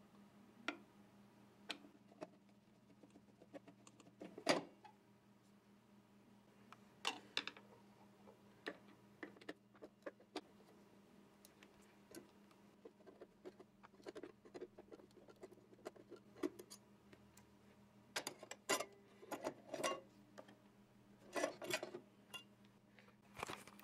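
Faint scattered clicks and metal taps from a screwdriver loosening the screws of a sewing machine's needle throat plate and lifting the plate off, with busier bursts of clinking near the end.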